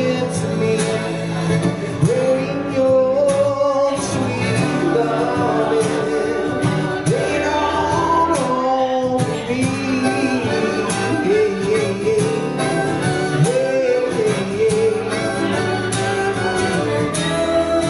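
Harmonica playing a solo of sliding, bending notes over steadily strummed acoustic guitar, live.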